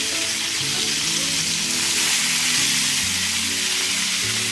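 Chicken pieces frying in hot ghee, a steady sizzle, with background music underneath.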